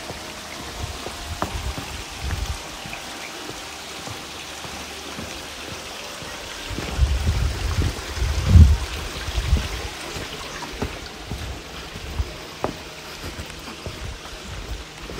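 Steady rushing of a flowing stream, with a few low rumbling bumps about halfway through.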